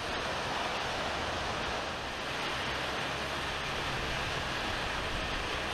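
Steady rushing noise of turbine engines running, with a faint low hum underneath.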